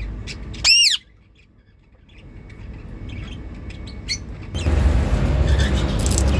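Indian ringneck parrot giving one loud, arching squawk just under a second in, then a short chirp near four seconds, with faint clicks between. About four and a half seconds in, a steady low rumbling background noise comes in.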